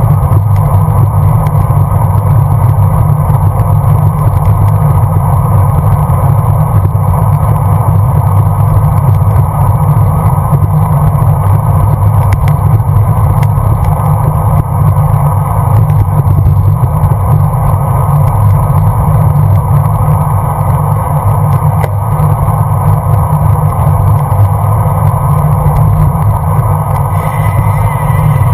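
Steady, loud rush of wind and road noise on a bicycle-mounted GoPro's microphone while riding at speed.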